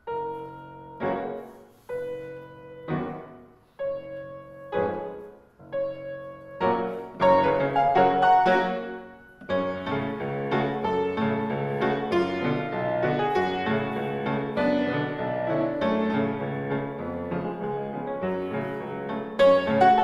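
Grand piano played solo. It opens with detached chords about once a second, each fading before the next, then moves from about six seconds in into a louder, continuous flowing passage.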